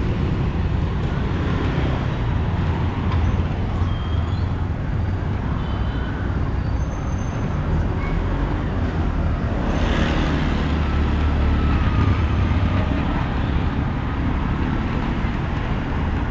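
Road traffic with engines running steadily, and a louder swell about ten seconds in, as of a vehicle passing close.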